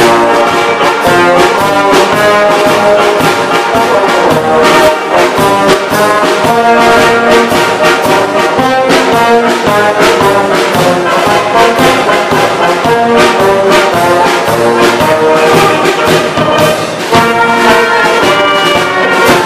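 South Tyrolean brass band playing a tune, tubas and trumpets over a bass drum keeping a steady beat.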